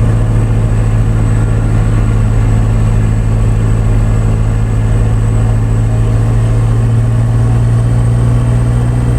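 Truck engine running at a steady speed, heard from inside the cab as a constant low drone.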